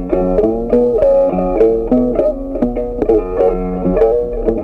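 Instrumental background music carried by a plucked string instrument, with a melody of short notes that change every fraction of a second.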